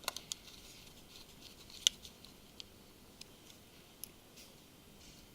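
Scattered small clicks and ticks of a small Phillips screwdriver and tiny screws being handled and set against a phone's plastic rear housing, with one sharper click about two seconds in.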